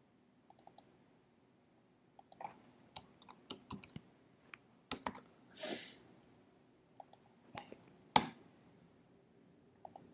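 Sparse, irregular computer keyboard keystrokes and mouse clicks, with one louder click about eight seconds in.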